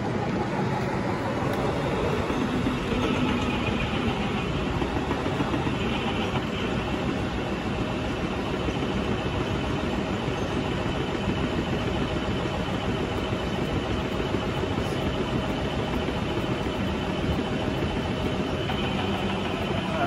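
Electric honey extractor running steadily at low speed, its basket spinning uncapped frames of honeycomb.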